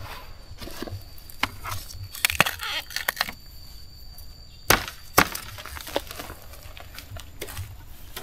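Dry bamboo and twigs snapping and crackling in a bamboo thicket. There is a cluster of snaps a couple of seconds in, then two loud cracks half a second apart a little past the middle.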